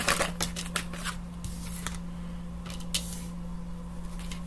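Cards being handled: a few quick flicks and taps as a card is drawn from the deck and laid on a wooden table, most of them in the first second. A steady low hum runs underneath.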